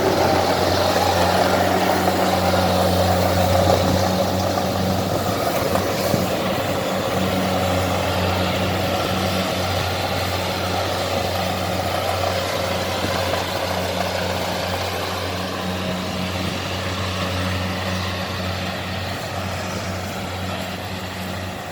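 Kubota 70 rice combine harvester's diesel engine running steadily under load, with a broad mechanical clatter over a low hum, slowly fading.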